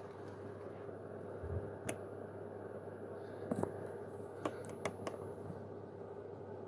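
Quiet room tone with a steady low hum, broken by a handful of faint clicks and taps between about one and five seconds in.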